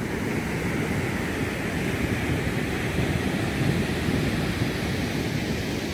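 Surf breaking along the shore, with wind buffeting the microphone as a steady rumbling hiss.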